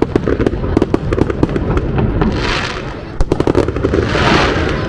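Aerial fireworks going off in a dense barrage: many rapid bangs and pops, with two swells of crackling hiss from crackle shells, about two and a half and four seconds in.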